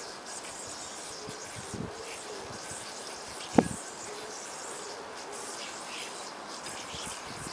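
A yo-yo worked through string tricks: faint string and yo-yo noise over steady background hiss, with one sharp click about three and a half seconds in.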